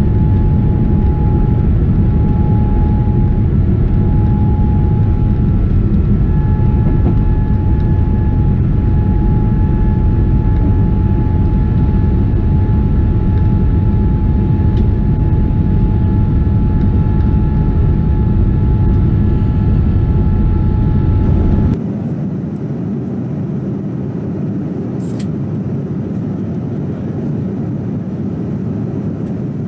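Boeing 787-10's turbofan engines at takeoff power through the takeoff roll and climb-out, heard from a window seat: a loud steady roar with high, steady whining fan tones. About 22 seconds in it cuts to a quieter steady cabin hum, with one brief click a few seconds later.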